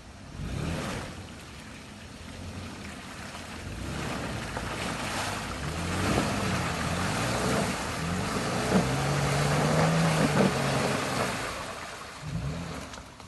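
Toyota Land Cruiser Prado 120 SUV driving over off-road terrain, its engine revving up and down several times under load over a steady rushing noise, loudest a little past the middle.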